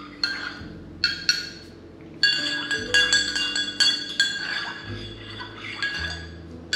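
Metal spoon stirring coffee in ceramic mugs, clinking against the mug walls with a ringing tone after each strike. A few spaced clinks come first, then a quicker run of clinks in the middle.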